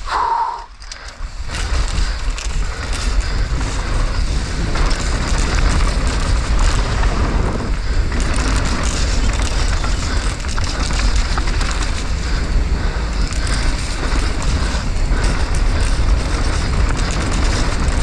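Steady heavy rumble and buffeting of wind on a helmet- or bike-mounted GoPro's microphone during a downhill mountain-bike run, with the bike's rattle and tyre noise on a wet, muddy trail. There is a brief dip about a second in, then the rumble holds on.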